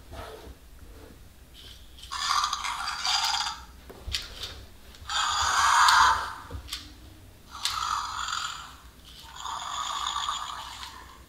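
Fingerlings Untamed T-Rex toy's small speaker playing short electronic growls and roars, four bursts of about a second each with pauses between, as the toy is tilted and turned in the hands.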